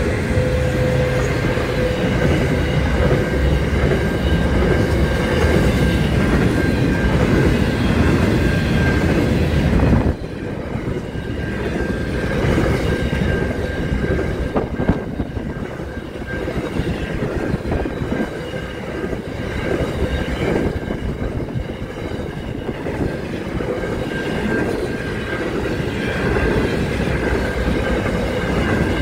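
Aurizon freight train's container wagons rolling past close by, a steady rumble of steel wheels on the rails. The sound drops abruptly about ten seconds in, then carries on a little quieter.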